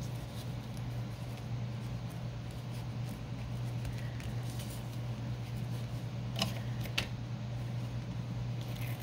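A steady low hum with the crisp rustle of work at a craft table, and near the end two short snips of scissors cutting fabric ribbon, a little over half a second apart.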